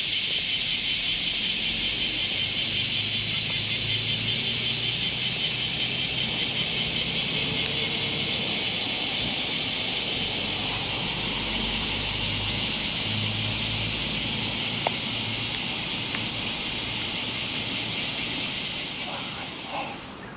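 Insects buzzing in a high, rapidly pulsing chorus of about five pulses a second, which smooths into a steadier hiss after about eight seconds and drops away near the end.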